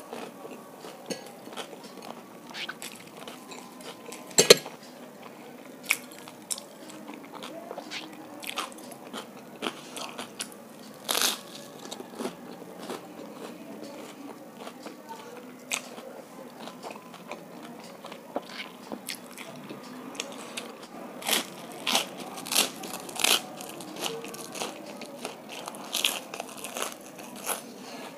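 A person biting and chewing crunchy food close to the microphone, with crisp crunches at irregular intervals. The sharpest crunch comes about four seconds in, and a quick run of crunches comes near the end.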